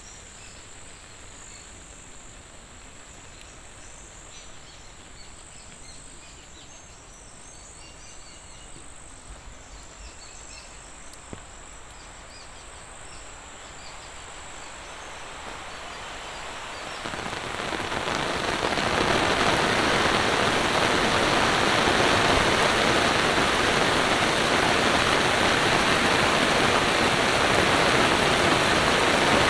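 Monsoon rain: light ambience with a steady high insect trill and scattered drips gives way, from about 14 seconds in, to a heavy downpour that swells over a few seconds and then stays loud and steady.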